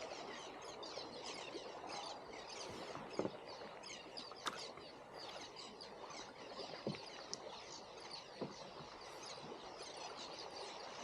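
A flock of seabirds chirping continuously in many quick, high calls while they feed on a school of bait fish, over a faint wash of water, with a few sharp clicks.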